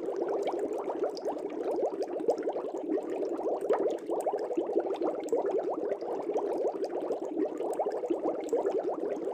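Air bubbles streaming up through a fish tank's water: a steady, dense bubbling made of many quick blips that each rise in pitch.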